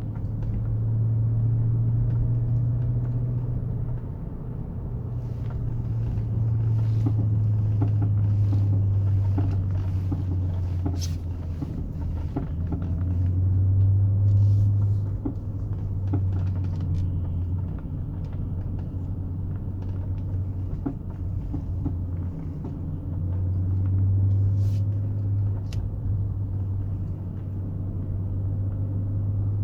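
BMW E39 535i with its V8 running while the steering is turned, a steady hum that swells and eases, with short sharp clunks and knocks from the front left corner coming in clusters. The clunk on steering persists even with new tie rods, bushings, springs and shocks, and its cause is unknown.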